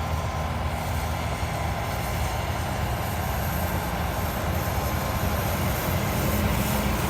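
A machine engine running steadily under a loud, even hiss, consistent with engine-driven equipment used to clean farm machinery.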